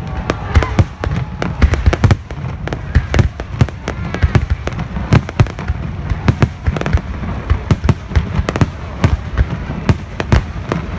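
Fireworks display: a dense, irregular barrage of sharp bangs and crackles, several a second, over a constant low rumble of further explosions.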